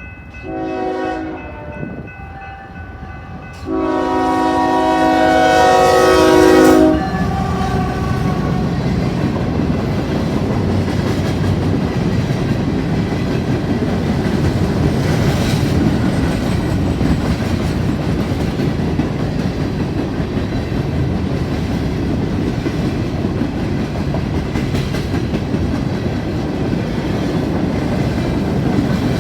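Norfolk Southern train passing a grade crossing. Its locomotive's air horn sounds a multi-note chord, briefly about a second in and then in a long blast of about three seconds. After that comes a steady rumble of rail cars with wheels clacking over the track.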